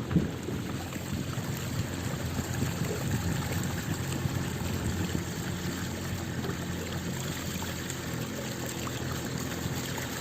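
Steady rushing of flowing water with a faint low hum underneath.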